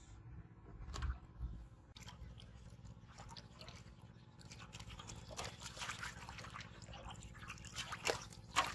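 Water splashing and dripping in an aluminium basin as live carp are handled and lifted out, a busy run of small spatters and clicks from about three seconds in, with a sharper splash near the end. A dull knock about a second in.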